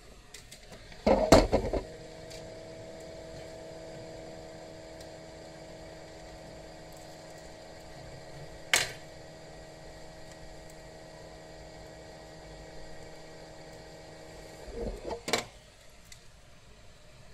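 A small electric appliance or motor hums steadily for about thirteen seconds, bracketed by loud handling knocks as it starts and stops, with a single sharp click about halfway through.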